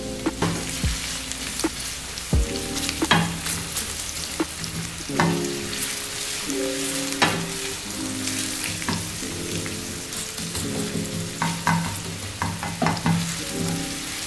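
Sliced red onions sizzling in oil in a stainless steel frying pan, stirred with a wooden spoon that knocks and scrapes against the pan now and then, with a cluster of knocks near the end.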